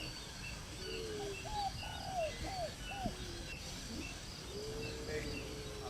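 Birds calling: a run of four short arched calls, then a longer drawn-out call near the end, with faint high chirps repeating in the background.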